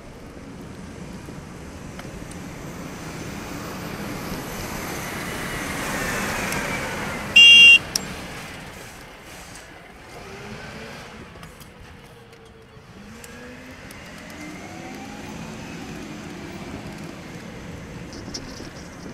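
Diesel bin truck's engine running close alongside a bicycle, its pitch rising and falling as it overtakes and pulls ahead, over road and wind noise. A loud, short horn blast sounds about seven and a half seconds in.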